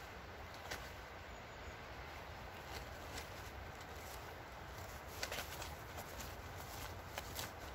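Faint rustling and a few scattered light clicks as nylon cord is handled and pulled through while being tied off on a wooden pole, over a steady low background rumble.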